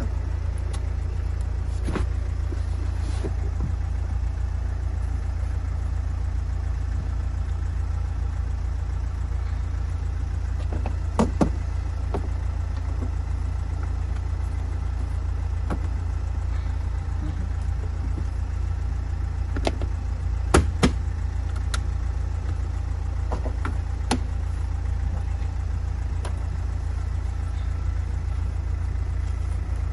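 Steady low rumble with scattered sharp clicks and knocks of plastic floor trim being handled and set in place on a van's cab floor, the loudest knocks coming in a cluster about two-thirds of the way through.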